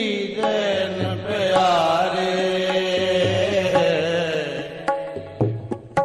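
Sikh kirtan: a held, ornamented sung line over sustained harmonium notes, with tabla strokes. The music thins out about five seconds in.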